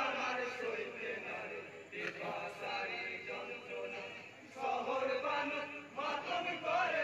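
Men's voices chanting a Bengali marsiya, a Muharram lament for Karbala, in a sung recitation that rises and falls, with a brief pause a little past halfway.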